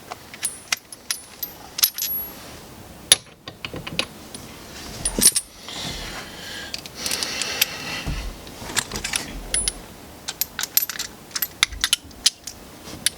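Small metal hand tools clinking and clicking: a series of separate sharp clicks, some with a short metallic ring, with a stretch of scraping in the middle.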